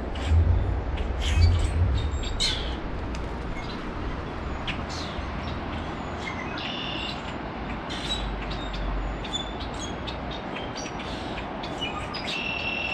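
Songbirds chirping and calling in short, repeated notes, with a couple of longer trilled notes, over a steady rushing background. There are low rumbles near the start and again partway through.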